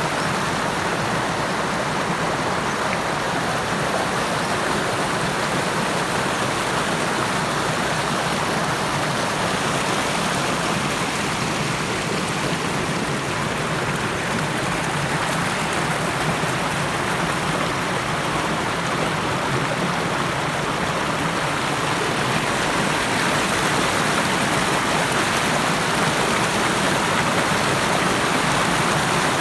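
Waterfall rushing in a steady, dense roar of falling water, a little louder in the last several seconds.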